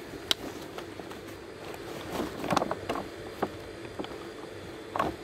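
Steady low engine hum of a running vehicle, with a few short clicks and knocks scattered through it.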